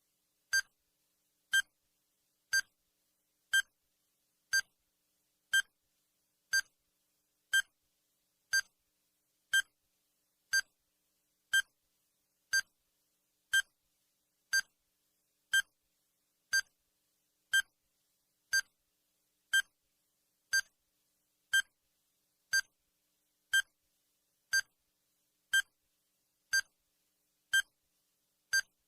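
Countdown timer's tick sound effect: a short, sharp electronic beep once a second, evenly spaced.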